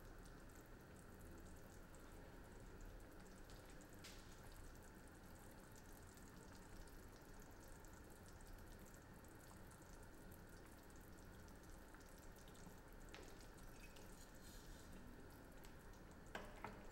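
Near silence: faint bubbling of a pot of soup simmering on a gas burner, with a few light clicks from stirring, the last of them about half a second before the end.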